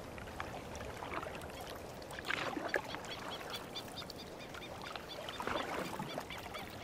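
Wooden canoe paddle dipping and pulling through lake water every few seconds, with a short run of quick high bird chirps about three seconds in.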